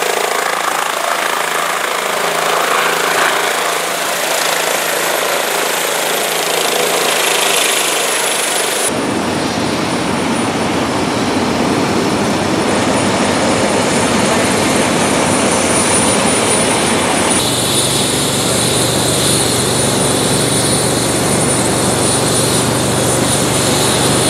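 Air ambulance helicopter running loud and steady: rotor and turbine noise with a high whine on top. The sound changes abruptly about nine seconds in and again about two-thirds of the way through.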